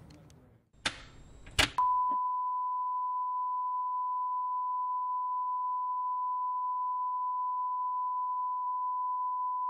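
Steady electronic test tone, the reference tone played with TV colour bars, starting about two seconds in and holding at one pitch and level without a break. Before it come two short bursts of static-like crackle.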